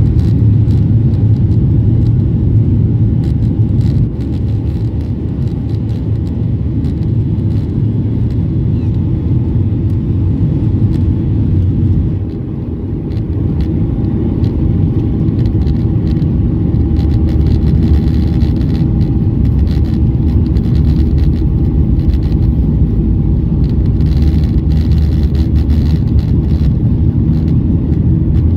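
Boeing 737-800 cabin noise: a steady, loud, low rumble of the jet's CFM56-7B engines and airflow, heard inside the cabin, dipping slightly about four seconds in and again about twelve seconds in.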